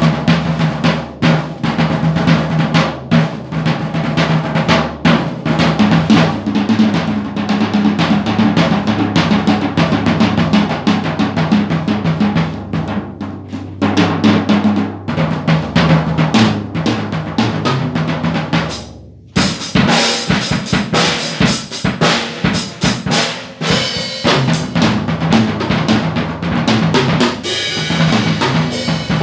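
Drum kit played continuously, a dense run of bass drum and snare hits. It breaks off for a moment about nineteen seconds in and resumes with brighter, busier hits.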